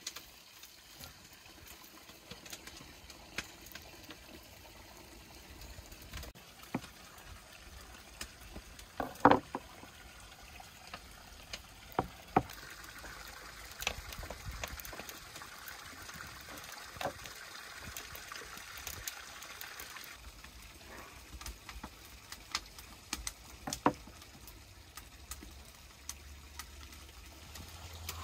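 Water running, with scattered clicks and knocks throughout and a sharper, louder knock about nine seconds in.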